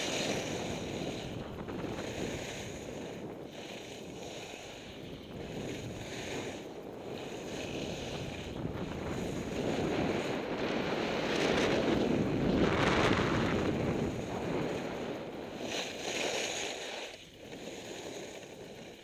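Skis sliding and carving on groomed snow, a rushing hiss that swells and fades, with wind buffeting the microphone; loudest about two-thirds of the way through.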